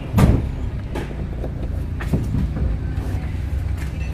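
An engine idling with a steady low hum, broken by a few short knocks, the loudest just after the start.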